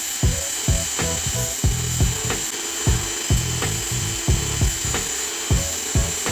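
Cordless drill running steadily with a high whine as it spins a small plywood wheel against hand-held sandpaper, the paper rasping on the wood. Background music with a steady beat plays over it.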